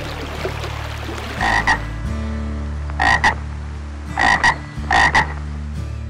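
White's tree frog croaking: four short croaks, each in two quick parts, at uneven intervals, over a low steady drone.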